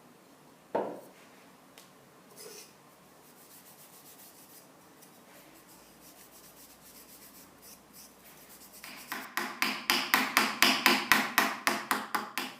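A single knock about a second in, then a hand tool worked back and forth against a workpiece in quick, even rubbing strokes, about four a second, over the last few seconds.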